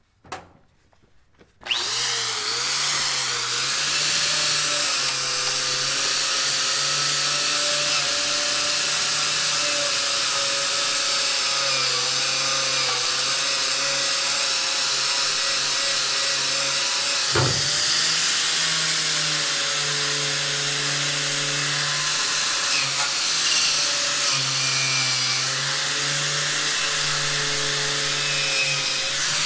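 Angle grinder starting up about two seconds in and spinning up, then running steadily while grinding metal, a loud hiss over a whine that dips and recovers as the load on the disc changes. One sharp knock about halfway through.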